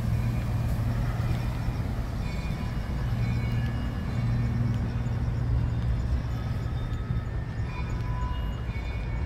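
Steady low rumble of distant city traffic, with faint short high chirps now and then.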